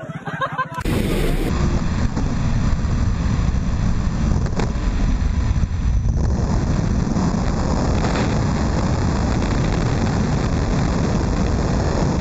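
Loud, steady rush of wind and aircraft engine noise at the open door of a small jump plane in flight. It starts abruptly about a second in.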